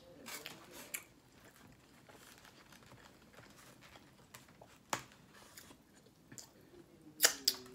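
Close-up chewing of a gyro, with soft wet mouth sounds and crunching. A few sharp clicks and crackles break in, one about five seconds in and the loudest cluster just after seven seconds.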